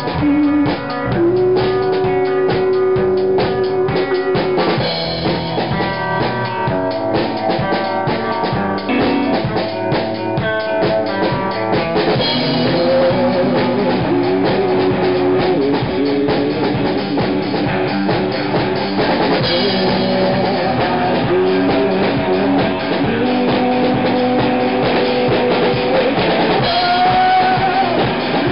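A rock band playing live on drum kit, electric guitar and bass guitar. Fast, busy drumming with cymbals dominates the first half; from about halfway the drumming thins and held guitar notes come to the fore.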